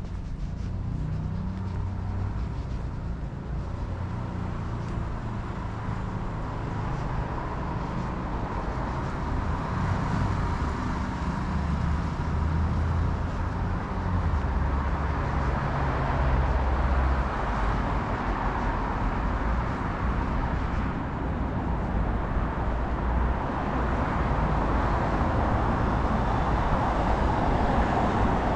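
Road traffic on a multi-lane city road: a steady rumble of cars passing, slowly growing louder.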